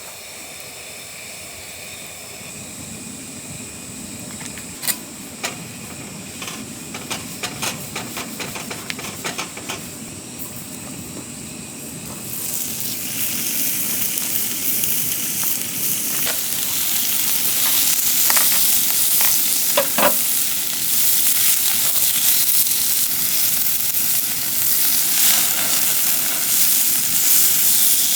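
Beef sizzling on a hot flat grill pan: a quiet sizzle with scattered clicks and taps of utensils at first, then, about halfway through, a much louder, steady sizzle.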